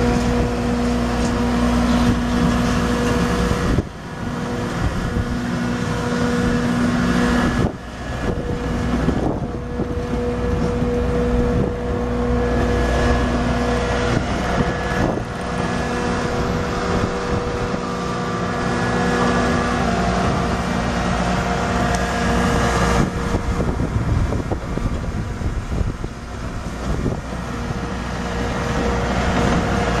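The Kubota V3307 3.3 L four-cylinder turbo diesel of a 2011 Bobcat T650 tracked skid steer is running, with a steady hum and whine. The level dips briefly twice, about four and eight seconds in.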